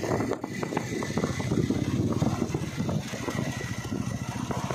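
Wind buffeting the microphone on a moving motorcycle, an uneven rush, with the motorcycle's running noise underneath.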